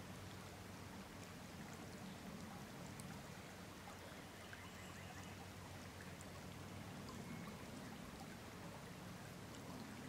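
Faint, steady rush of a shallow stream flowing, with a few light ticks of water.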